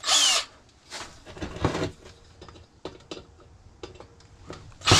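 A power drill backing screws out of the side of a microwave magnetron: the drill starts and runs steadily, whining, just before the end. Before that there is a short loud burst at the start and scattered light clicks and knocks of metal parts being handled.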